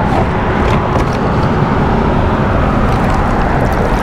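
Wind buffeting an action-camera microphone: a loud, steady, rough rushing with a heavy low rumble.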